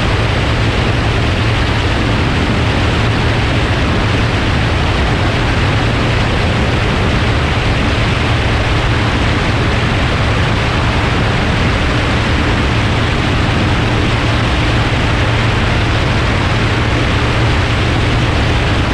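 Light single-engine floatplane in steady cruise: a constant low propeller-engine drone under heavy wind rush on a microphone mounted outside on the wing.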